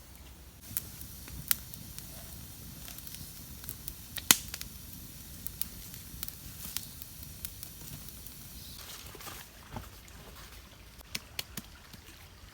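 Scattered sharp clicks and knocks over a faint, steady background, with one much louder knock about four seconds in and a quick run of clicks near the end.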